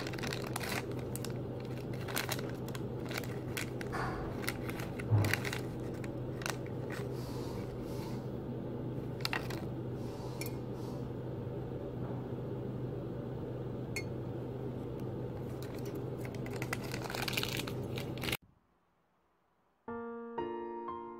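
Rustling and light clicks as a packaged biscuit is handled and a mug is used at a desk, over a steady low hum, with one louder thump about five seconds in. The sound cuts off sharply near the end, and soft piano music begins a second and a half later.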